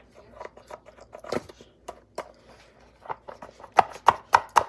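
Plastic Softsoap hand-soap bottle being worked by hand: a run of sharp plastic clicks and knocks, the loudest cluster near the end, as the thick soap will not come out.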